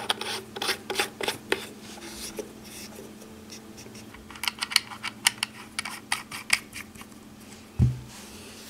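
Stainless-steel top section and glass tank of a Wotofo Serpent Mini rebuildable tank atomizer being screwed onto its deck by hand: a run of small metallic clicks and scrapes from the threads, in two spells, with a dull knock near the end. A steady low hum runs underneath.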